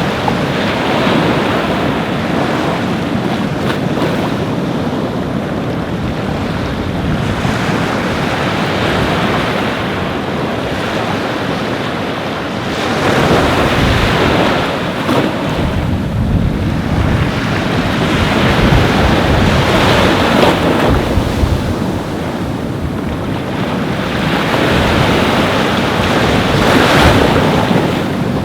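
Ocean surf breaking and washing up a beach, a continuous rush that swells and eases every several seconds, with wind buffeting the microphone.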